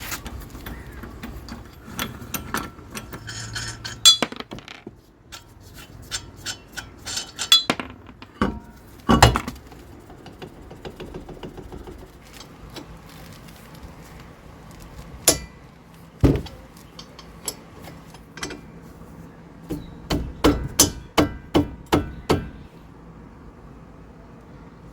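Metal tools and parts clinking and knocking irregularly during work on a car's brakes, with a quick run of about six sharp knocks a little before the end.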